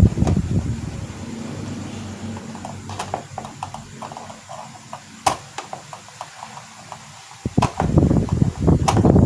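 Projector cooling fan air noise dying away to a low hum over a few seconds, with a few sharp clicks; the loud rush of fan air starts up again about seven and a half seconds in.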